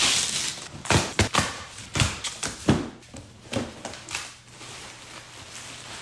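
Tape being ripped off a cardboard box, a series of sharp tearing rips over the first few seconds, then softer rustling of cardboard flaps and plastic wrapping as the box is opened.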